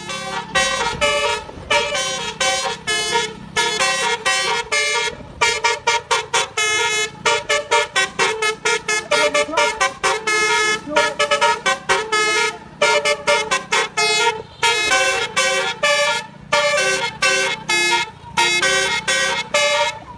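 Bus telolet horn, a set of musical air horns, playing a fast melody of short, clipped notes that step up and down in pitch, with a faint steady low hum underneath.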